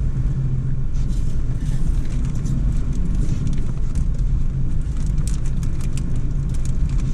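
Car driving through a tunnel: a steady low rumble of engine and tyres, with many faint, scattered clicks over it.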